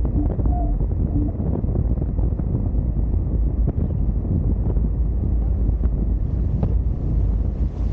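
Steady heavy wind buffeting the microphone, mixed with water rushing and spraying along a Hobie Tiger F18 catamaran's hull as it sails.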